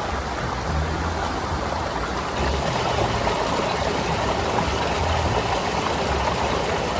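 Shallow mountain stream rushing and splashing over rocks, a steady rush of water, with an uneven low rumble of wind on the microphone. It gets louder and hissier about two and a half seconds in.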